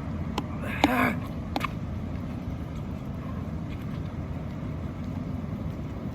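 Steady low outdoor rumble, with a short grunt about a second in from the man exercising and a few light clicks.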